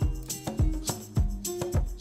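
Background music with a steady beat, about one strong beat every half second or so, over held pitched notes.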